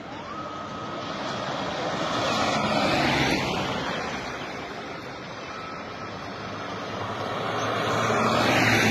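Motorcade vehicles driving past on the road: engine and tyre noise swells twice, loudest near the end as a police jeep passes close. A brief siren tone sounds near the start.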